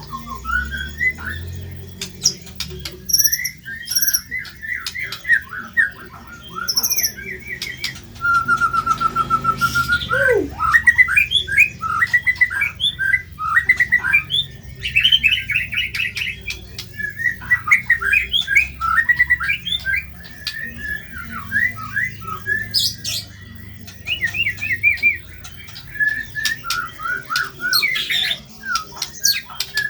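White-rumped shama (murai batu) singing a loud, varied song of rapid chirping phrases, trills and harsh notes. About a third of the way in comes one long steady whistle that ends in a steeply falling note.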